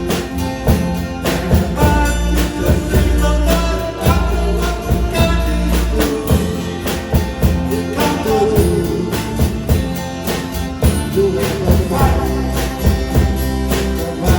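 A song with a steady drum beat and bass, and a singing voice over it.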